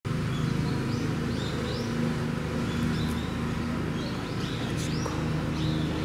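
Diesel engine of a mini excavator running steadily at an even pitch, with small birds chirping again and again over it.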